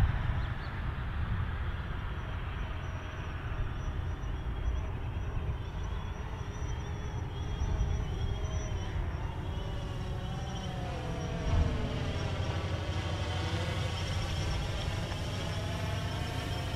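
Drone's propellers whining in flight, a steady high tone with many pitch lines that bend and sweep in the second half as it moves, over a low rumble of wind on the microphone.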